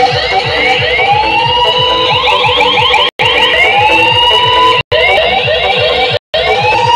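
DJ sound system playing dance music: a siren-like rising sweep, repeated about every second and a half, over a fast bass drum beat. The sound cuts out briefly three times in the second half.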